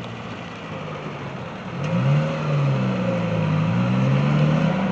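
A motor vehicle's engine running close by, its low note rising and getting louder about two seconds in, as if pulling away or accelerating.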